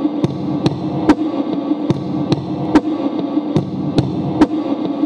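Electric guitar played live, holding a droning tone, with sharp percussive clicks about twice a second over it.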